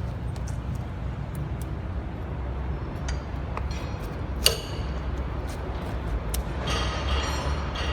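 Steady low machinery hum with scattered metallic clinks and ticks, one sharp clink about four and a half seconds in.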